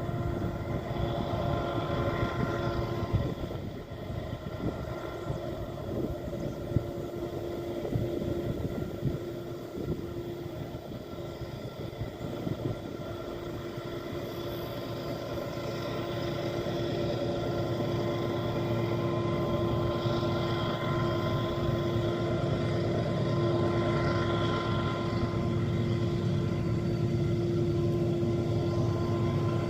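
Diesel-electric freight locomotive engines running at full throttle, hauling a train up a steep grade: a steady engine drone with a held whine over a deep rumble, growing louder through the second half.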